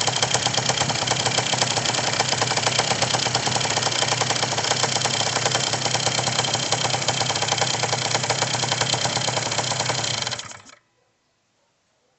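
Car engine running with a fast, even knocking, the strange knock whose cause is unknown. The sound cuts off suddenly near the end.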